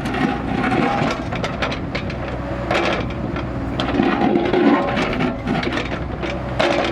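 Kubota KX161-3 mini excavator's diesel engine running steadily under load, with frequent knocks and scrapes of the bucket working through soil and stones.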